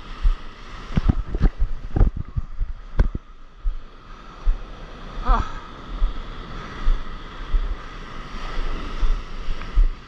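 Broken surf churning and washing around a camera at the waterline, with wind buffeting the microphone. There are several sharp knocks in the first three seconds.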